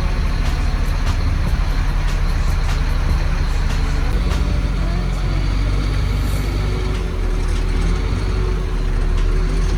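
Steady low rumble of a car driving, heard inside the cabin: engine and road noise.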